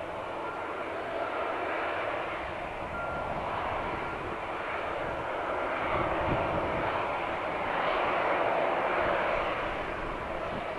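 Airbus A321 airliner's jet engines running steadily, a broad rushing jet noise that swells a little about eight seconds in.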